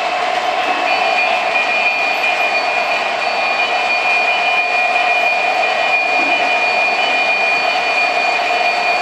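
O-gauge model freight trains rolling on track: a steady running rumble of wheels and motors. A steady high-pitched whine joins about a second in and holds.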